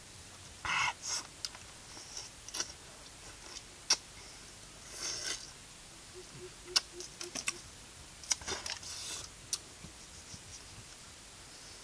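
Hands peeling and breaking small green fruits: scattered sharp clicks and snaps with short rustling, tearing sounds.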